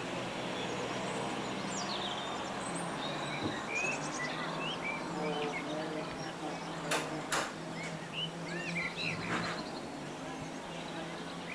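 Birds chirping in short repeated calls over a steady low hum, with two sharp clicks about seven seconds in.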